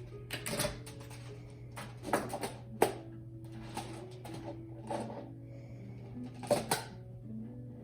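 Plastic magnetic building tiles (Magna-Tiles) clacking and snapping together as they are handled and placed: scattered sharp clicks, loudest around two to three seconds in and again in a pair near six and a half seconds, over a steady low hum.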